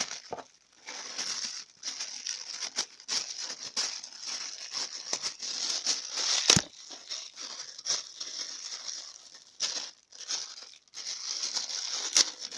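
Packaging of a new toilet cistern fittings kit being torn open and crinkled by hand: continuous crackling and rustling with many small snaps, the sharpest about six and a half seconds in.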